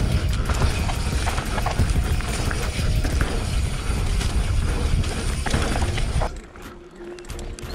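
Radon Slide 29er enduro mountain bike descending a rocky dirt trail: tyres rumbling over ground and rock, with frequent clattering knocks from the bike and wind on the handlebar camera's microphone. The noise drops off sharply about six seconds in.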